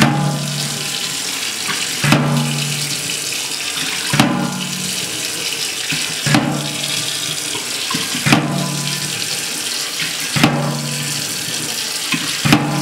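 Kitchen tap running steadily into a metal baking tray balanced in a stainless-steel sink. About every two seconds the tray tips, spills its water with a knock and a short ringing gush against the sink, then rocks back to fill again.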